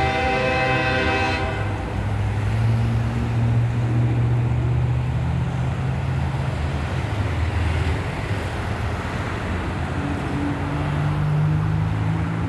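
A train horn holding a steady multi-note chord that cuts off about a second and a half in. After that, a steady low rumble of car and truck engines and tyres as road traffic drives over the crossing.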